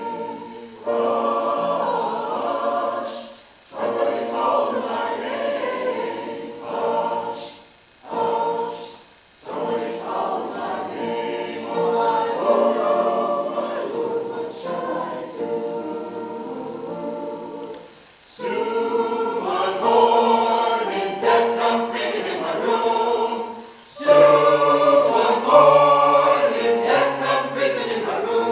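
Church choir of mixed men's and women's voices singing together under a director, in sung phrases with short breaks between them.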